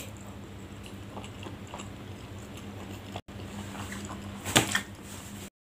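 A person eating: chewing and small mouth clicks over a chewy tapioca snack, with a sharp clink of a metal spoon on a ceramic plate about four and a half seconds in. The sound drops out briefly just after three seconds and cuts off abruptly near the end.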